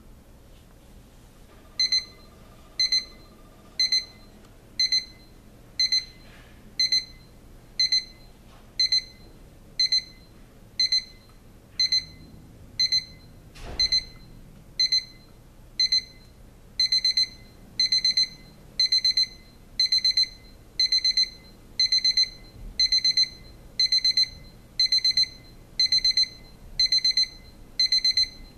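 First Alert SFA2650 alarm clock's electronic beeping alarm: a high beep about once a second that, a little over halfway through, steps up to longer bursts of rapid beeps, the clock's four-stage ascending alarm moving to a more insistent stage. One sharp click comes near the middle.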